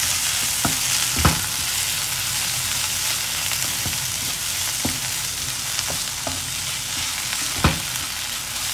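Chopped tomato, onion and spices sizzling in oil in a non-stick kadai while a wooden spatula stirs them. A few knocks of the spatula against the pan stand out, the loudest about a second in and near the end.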